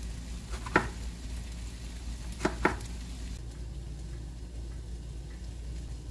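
Kitchen knife chopping through an eggplant onto a wooden cutting board: one sharp chop about a second in, then two quick chops together about two and a half seconds in. After that only a low steady hum remains.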